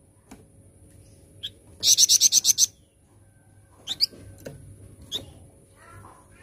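Flamboyan songbird singing: a loud, rapid trill of about eight high notes lasting under a second, followed by a few short, sharp chirps.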